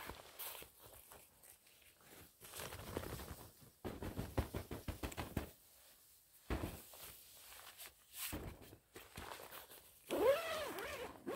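Footsteps crunching in snow, then a tent door zipper pulled open near the end, its buzz sweeping up and down in pitch with the pull.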